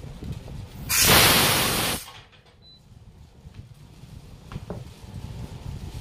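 A loud blast of hissing compressed air, about a second long, starts about a second in and cuts off sharply. It is the air exhausting from a pneumatic tyre bead pressing machine as it works its pressing arm.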